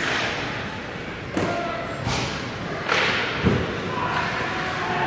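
Ice hockey play echoing in an indoor rink: about four sharp knocks and thuds from sticks and puck over the hiss of skates on the ice, with distant shouting voices.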